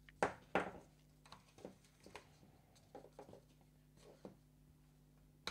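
Faint, scattered light clicks and rustles of fingers working a small propeller off a micro flying wing's motor, over a low steady hum.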